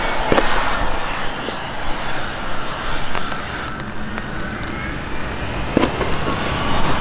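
Jet engines of a Boeing C-17A Globemaster III, its four turbofans running steadily at taxi power, with a faint whine over the noise.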